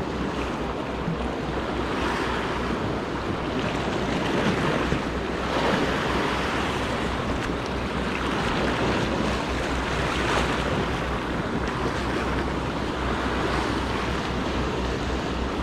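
Sea waves washing and breaking over shoreline rocks, surging every few seconds, with wind rumbling on the microphone.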